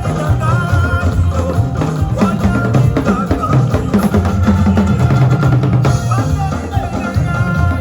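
Background music with a steady drum beat and a thick bass line, in a relaxed lofi Afrobeat style.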